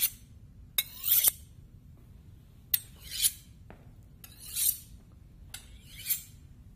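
Metal instruments clinking and scraping close to the ear, in short bursts of rasping hiss with sharp clicks, about four or five times, all from a binaural recording of a mock surgery.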